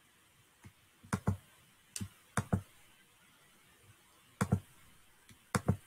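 About five computer mouse clicks at irregular intervals, each heard as a quick press and release, with near silence between them.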